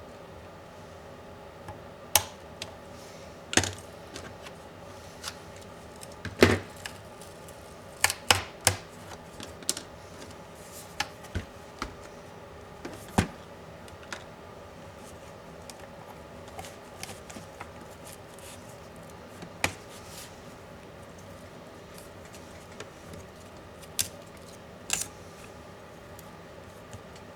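Irregular sharp clicks and knocks of laptop parts and small tools being handled during disassembly. They are loudest and most frequent in the middle, with a couple more near the end, over a faint steady hum.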